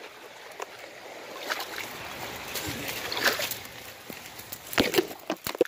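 Leaves and brush rustling, with twigs crackling, as someone pushes through dense undergrowth; a few sharp snaps come near the end.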